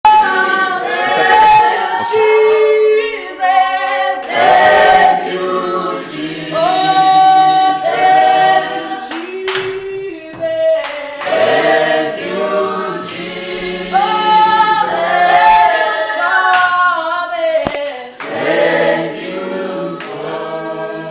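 A choir singing a cappella, several voices holding long notes together in harmony, phrase after phrase.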